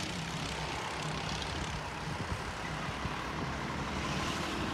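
Go-kart engines running out on the track, heard from trackside as a steady engine drone.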